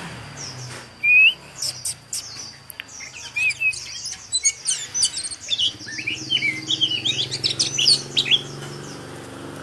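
Caged white-eye (chim khuyên) singing a fast, high, twittering warble of quick chirps, starting with one loud chirp about a second in; the keeper calls its song strong. A faint low steady hum lies underneath in the second half.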